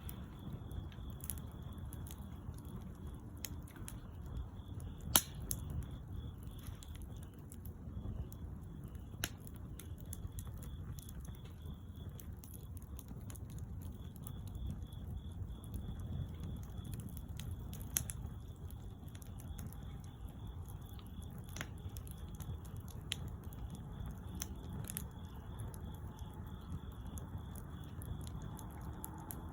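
Wood fire burning: a low steady rush with scattered sharp pops and crackles, the loudest pop about five seconds in.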